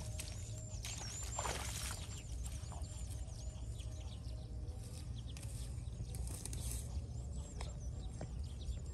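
Bare feet splashing a few times through shallow muddy water, the clearest step about a second and a half in. Many short, high-pitched chirps of small birds repeat throughout, over a low rumble of wind on the microphone.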